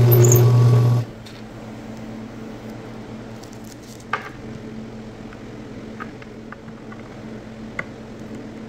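Drill press running, its twist bit boring through the wooden tray edge, stopping abruptly about a second in. A quieter steady hum follows, with a few small clicks as screws are driven by hand with a screwdriver.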